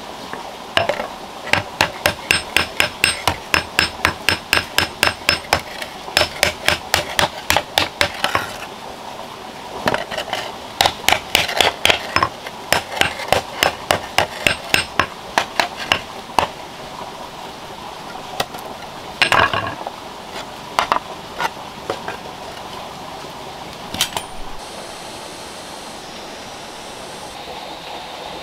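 Hand hammer beating a red-hot steel shovel blade held in tongs on a flat stone anvil, the blade being forged to shape. A fast run of about three sharp blows a second, a brief pause, a second run, then a few scattered blows.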